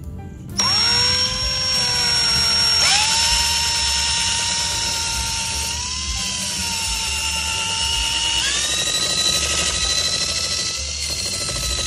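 Electric power tool spinning a wire wheel against a rusty steel table leg, stripping surface rust. Its whine starts suddenly and steps up in pitch twice as it works, over a steady scouring hiss.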